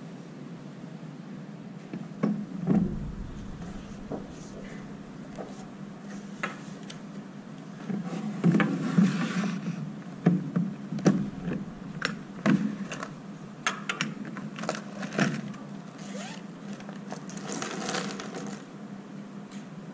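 Art supplies being handled at a desk: irregular clicks, knocks and rattles of pencils and pens in a clear plastic storage box, and a sheet of paper rustling near the end, over a steady low hum.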